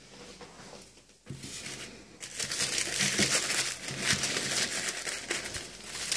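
Tissue paper packing crinkling and rustling as firecrackers are handled and lifted out of it, starting faintly and growing busier about a second in.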